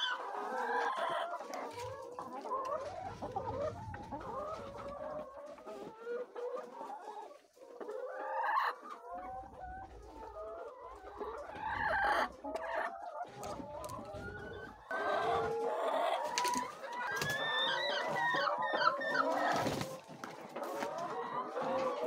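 A flock of laying hens clucking and calling, many overlapping calls at once, with a few sharp knocks in the second half.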